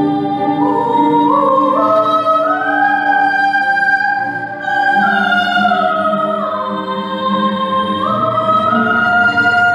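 A woman singing long held notes that step up and down in pitch, over a bowed cello playing low sustained notes.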